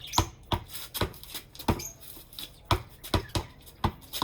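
Basketball being dribbled on a hard floor: a run of about eight or nine bounces, each a sharp thud, coming at an uneven pace.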